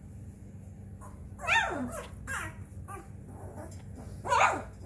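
Three-week-old Newfoundland puppies crying: two louder calls that fall sharply in pitch, about a second and a half in and near the end, with softer short squeaks between.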